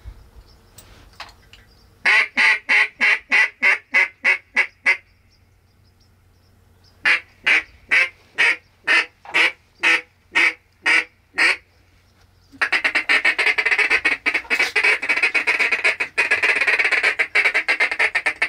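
Duck call blown by a hunter, imitating a mallard hen: a quick run of about eleven loud quacks, a short pause, a slower run of about ten, then fast rolling feed-call chatter for the last six seconds.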